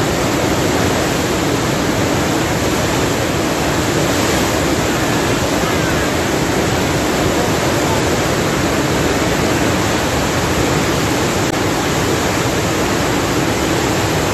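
A mountain river in flash flood after a cloud burst, its swollen, turbulent water rushing past in a steady, loud torrent.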